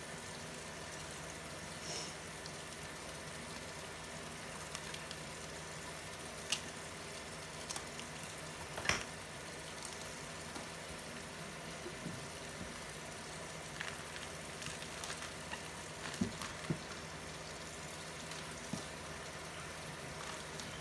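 Steady hiss of water running from a kitchen tap while a raw whole chicken is handled at the sink, with a few scattered clicks and knocks.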